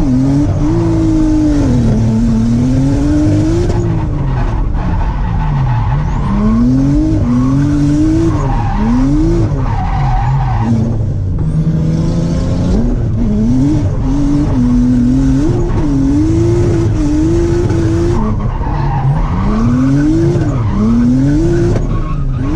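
Nissan Laurel's engine revving up and down again and again as the car drifts in long arcs, with tyres skidding. The engine is running with ignition misfires.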